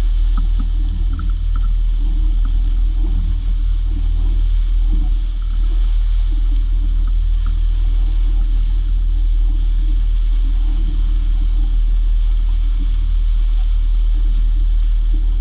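225-horsepower outboard motor running steadily as the boat moves under way, a constant low rumble with the rush of water from the wake.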